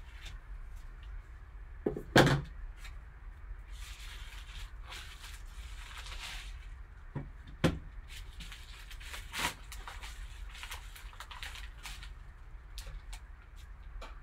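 Rustling and crinkling of a sealed card-pack envelope being handled and opened by gloved hands, with a few sharp knocks. The loudest knock comes about two seconds in, and weaker ones follow later.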